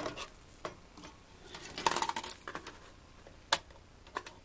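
Small metallic clicks and scraping as pliers bend back the tabs of a metal shield cover on a cable box circuit board, with a cluster of scraping clicks about two seconds in and a single sharp click near three and a half seconds.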